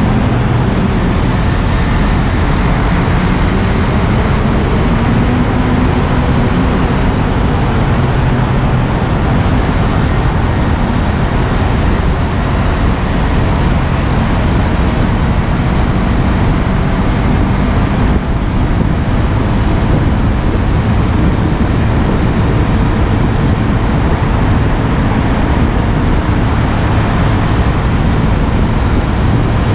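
Steady wind rush on an unshielded action-camera microphone, mixed with the KTM Duke 125's single-cylinder engine running and the road and traffic noise of cars close by in a tunnel.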